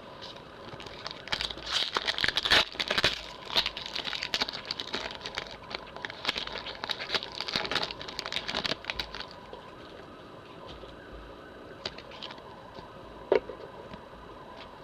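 A Pokémon trading card booster pack's foil wrapper being torn open and crinkled: a dense run of crackles for most of the first nine seconds, then quieter rustling with a couple of single clicks near the end.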